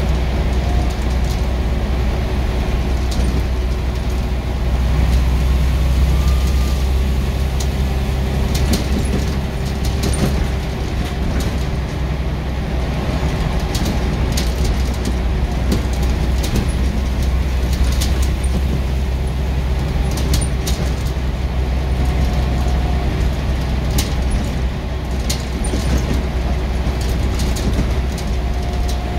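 Scania East Lancs Esteem single-deck bus on the move: a steady, heavy low engine and road rumble with a steady drone, and frequent short clicks and rattles.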